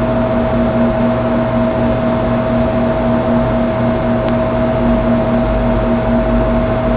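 Steady hiss with a constant high-pitched hum and a fainter, pulsing lower hum; an unchanging background noise with no speech.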